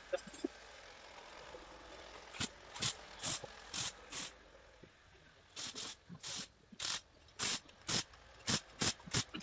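Short mechanical clicks and clacks, about fifteen at an uneven pace, starting a couple of seconds in, over a faint steady hiss.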